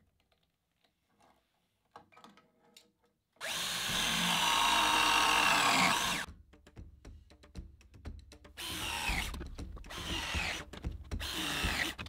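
Battery-powered pipe press tool crimping copper press fittings. The motor whines in three runs, each cutting off abruptly: a long one of nearly three seconds, then two shorter ones near the end. Before that come a few faint clicks of tools being handled.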